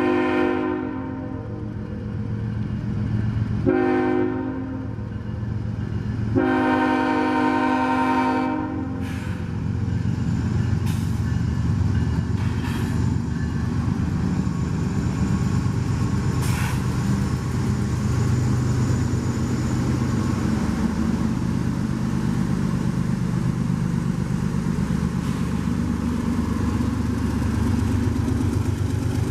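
Freight train's diesel locomotive horn blowing three blasts, the last one the longest, as the train approaches. After the horn stops, the diesel engines and the rolling train keep up a steady low rumble.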